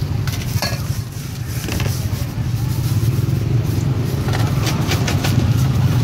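Knife and spoon clicking and scraping against a stainless steel mixing bowl as corn is cut off the cob and a spicy salad is tossed, a few sharp clicks scattered through, over a steady low motor hum.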